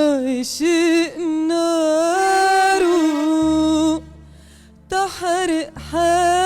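A woman singing solo with vibrato, holding long notes, over a steady low backing drone; she breaks off for about a second around four seconds in, then sings on.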